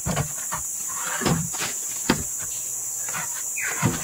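Steady high-pitched drone of forest insects, with several dull knocks and thumps of footsteps and wood scattered through it.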